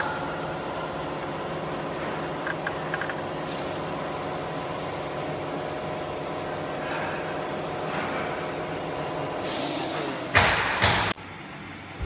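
Laser marking machine running with a steady electric hum carrying several fixed tones. Near the end a loud hiss lasts about a second, then the sound drops away suddenly.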